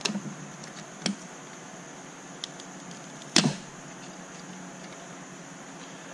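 An opened charger's plastic housing and circuit board handled in the hands, giving a few short clicks and knocks, the loudest about three and a half seconds in.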